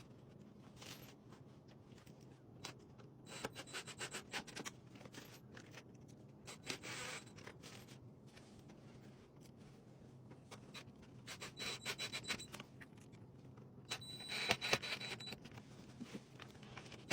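Faint rubbing, scraping and light knocks of wooden boards being fitted and screwed together, in short bursts with pauses between.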